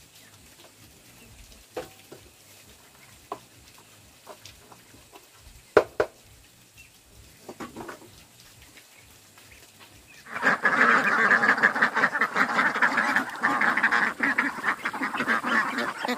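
A flock of farm poultry calling. A few scattered single calls come first; about ten seconds in, the whole flock breaks into loud, dense, unbroken calling.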